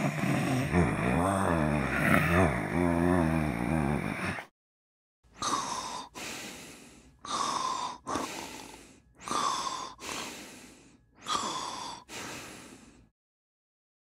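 A person snoring: a long, rattling, pitched snore of about four seconds, then after a short pause five snoring breaths about two seconds apart, each starting sharply and fading out.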